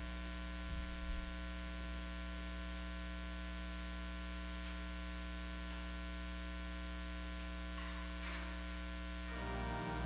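Steady electrical mains hum with its overtones, with a couple of soft knocks about a second in. Music comes back in near the end.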